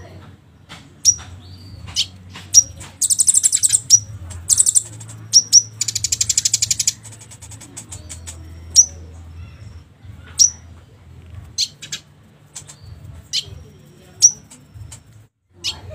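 Kolibri ninja sunbird song used as a lure: sharp, high down-slurred chirps every second or two, with two fast rattling trills about three and six seconds in. A faint low hum runs underneath.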